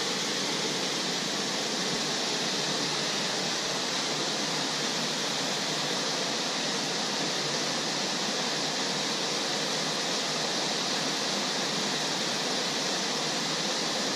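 Small waterfall spilling from a culvert into a stream pool: a steady, even rush of falling water.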